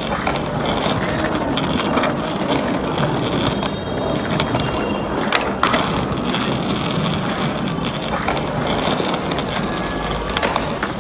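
Skateboard wheels rolling over stone paving tiles, with a few sharp clacks of the board about midway and near the end.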